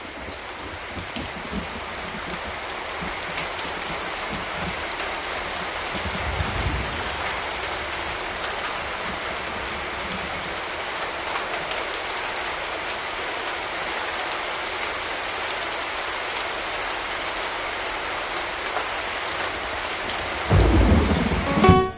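Heavy rain falling as a steady, dense hiss, with low rumbles of thunder a second in and again about six seconds in, and a louder rumble near the end.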